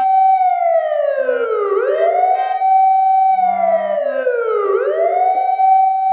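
Police car siren wailing: each cycle rises quickly, holds, then falls slowly, and starts again about every three seconds.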